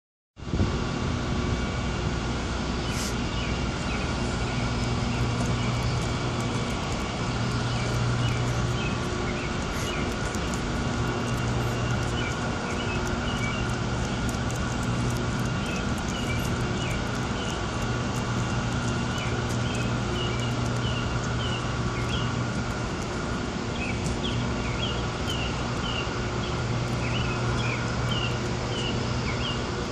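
Steady outdoor city hum, like distant traffic and air-conditioning units, with a low drone that fades in and out every few seconds and scattered short high chirps.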